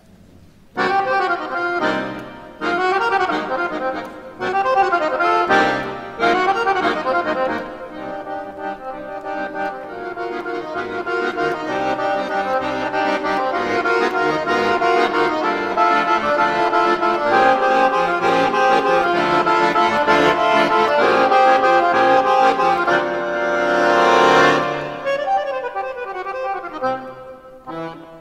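Piano accordion played solo: a few sharp, separated chords over the first several seconds, then a continuous passage of held notes that swells to a loud peak and fades near the end.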